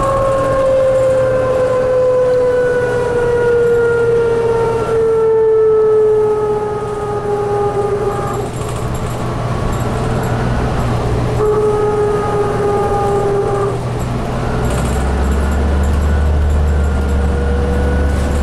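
Inside a 2004 New Flyer DE60LF hybrid articulated bus with an Allison EP50 hybrid drive and Caterpillar C9 diesel: the electric drive's pitched whine slides slowly down in pitch over the first eight seconds and sounds again briefly in the middle. From a few seconds before the end the low diesel drone grows louder and a fainter whine rises in pitch.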